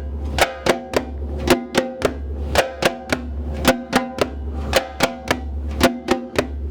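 Timbal played by hand, repeating a short groove of sharp slaps and ringing open tones.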